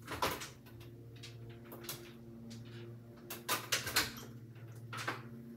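A door being opened and closed, with several knocks and bumps, the loudest about three and a half to four seconds in, over a steady low hum.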